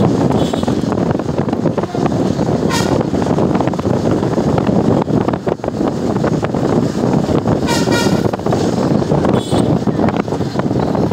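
Steady wind and road noise heard from inside a moving road vehicle with its window open. A vehicle horn gives a short toot about three seconds in, a longer blast around eight seconds, and a weaker toot shortly after.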